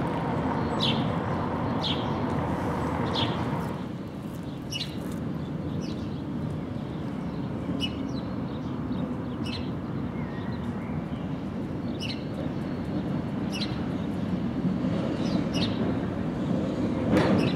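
Gotha-type tram approaching on street track, its rumble swelling toward the end as it draws near, while a bird chirps every second or two. A louder steady rumble fills the first few seconds and drops away about four seconds in.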